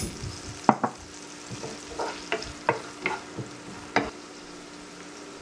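Chopped onion frying in oil in a nonstick pan, sizzling softly while being lightly sautéed, as a spatula stirs and knocks against the pan about five times, the knocks stopping about four seconds in.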